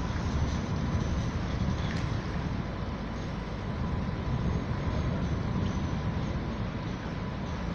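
Steady low rumble of city street traffic, with a faint steady high tone above it.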